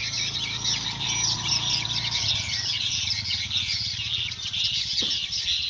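Dense, unbroken chorus of high, rapid swiftlet chirps and twitters: many swiftlets calling at once around a swiftlet house, the lively response that the farmer wants from his call sound.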